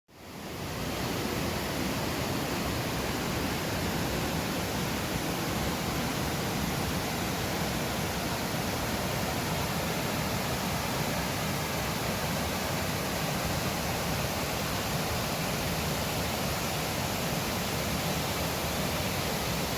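Waterfall rushing: a steady, even roar of falling water that fades in over the first second.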